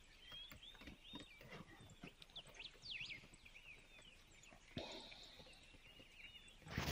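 Faint birdsong: small birds chirping in many short rising and falling notes, with a few light clicks and a brief rustle about five seconds in. A louder noise begins right at the end.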